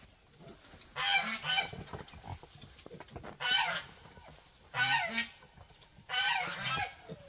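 Wild boar piglet squealing: four harsh, shrill squeals, each under a second long, spaced a second or two apart.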